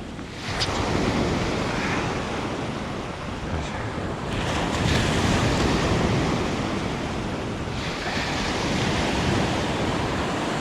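Sea surf breaking and washing up a sand beach, with a louder surge building about four seconds in and easing off near eight; wind buffets the microphone.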